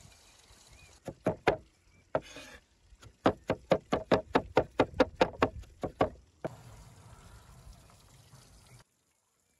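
Heavy cleaver chopping onion on a wooden cutting board. A few single strokes come first, then a quick, even run of about five chops a second for some three seconds.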